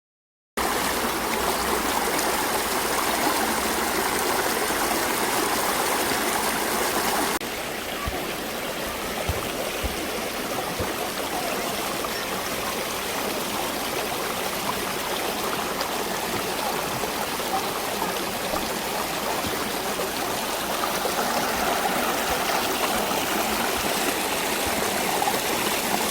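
Mountain valley stream rushing steadily over rocks. The sound starts about half a second in and drops slightly in level partway through.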